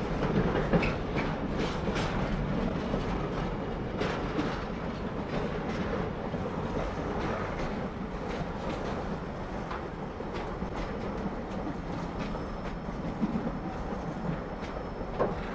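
Freight train of loaded container flat wagons rolling past, a steady rumble of wheels on rail with irregular clicks as wheels cross rail joints, slowly getting quieter.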